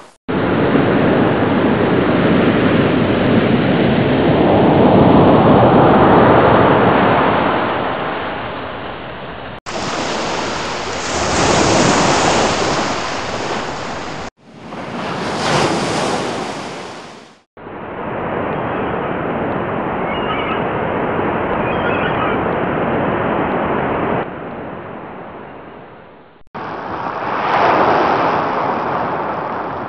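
Five short water sound effects cut one after another, each a rush of noise like surf on a shore, swelling and fading. The clips change abruptly about ten, fourteen, eighteen and twenty-six seconds in.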